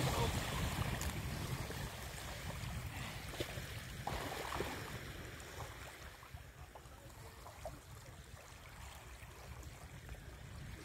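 Shallow sea water lapping and sloshing around wellington boots as someone wades, with a few small splashes. A low rumble is strongest at the start and fades over the first few seconds.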